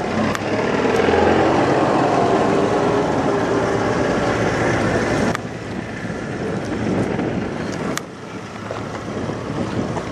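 A vehicle engine running steadily. It drops in level about five seconds in and again near eight seconds.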